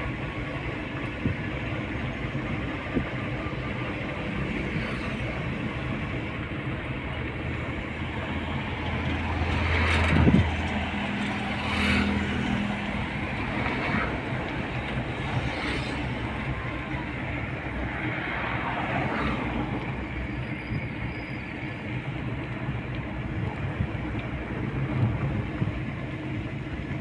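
Steady traffic rumble with several vehicles passing by in turn, each swelling up and fading away, the loudest about a third of the way in.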